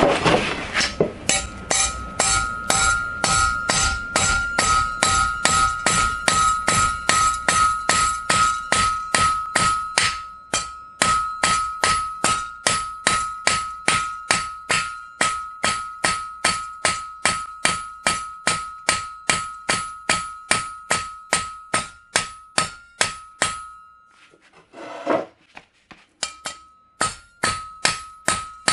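Hammer blows on the spine of a 1095 carbon steel blade, about two a second, driving its edge down into a 16.5 mm mild steel rod; each blow gives a sharp metallic clank, and a steady metallic ring carries on between them. The blows stop for about two seconds near the end, then start again.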